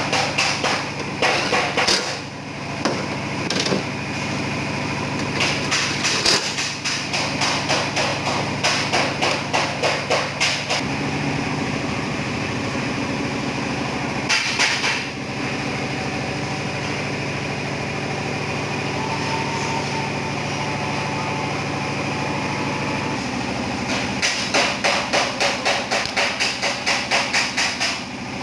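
Hammer strikes on sheet metal: panel beating a dented car door, in rapid runs of about four blows a second. Between the runs a steady machine hum continues for about twelve seconds.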